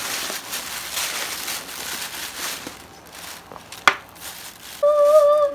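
Hands digging and scooping through loose, gritty potting soil inside a plastic bag, the soil rustling and the bag crinkling. There is a sharp click about four seconds in, and a short held vocal note near the end.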